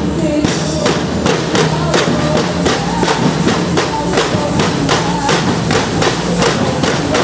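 Percussion band playing: drums keep a steady beat of about three strokes a second under a pitched melody.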